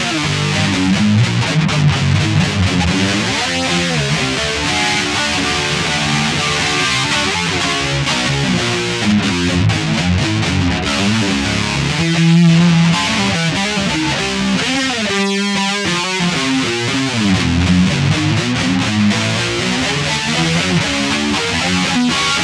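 Guitar jam: a guitar playing continuously, with a short thinning of the low notes about fifteen seconds in.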